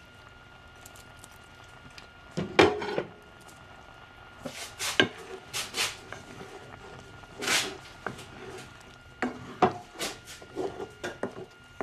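Wooden spoon scraping and knocking against a nonstick frying pan as it stirs pieces simmering in liquid. The sound is a string of separate scrapes and knocks, the loudest about two and a half seconds in.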